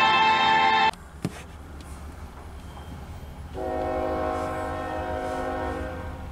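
Music that cuts off abruptly about a second in, leaving a low rumble and a single click. About three and a half seconds in, a diesel locomotive's air horn sounds one long blast of several tones at once, lasting about two and a half seconds and fading at the end.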